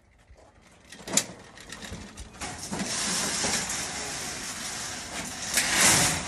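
Honda walk-behind mower being pushed up a steel mesh loading ramp onto a hitch-mounted cargo carrier: its wheels roll over the metal mesh with a steady scraping noise that grows louder as it climbs, after a sharp clank about a second in.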